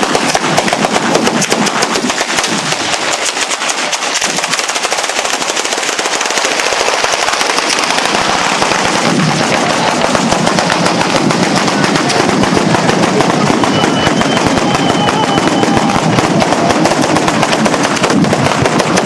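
An Italian batteria, a long chain of firecrackers laid along the ground, going off in a dense, unbroken rapid-fire rattle of bangs.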